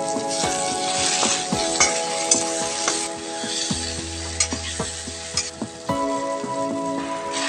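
Onions, tomatoes and green chillies sizzling in hot oil in a metal kadai, stirred with a metal spatula that scrapes and clicks against the pan. The sizzle is strongest in the first few seconds.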